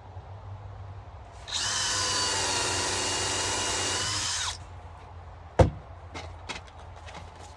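Power drill running steadily for about three seconds, spinning a headless finishing nail used as a bit to pre-drill a pilot hole in plywood. A sharp knock follows about a second after it stops, then a few light clicks.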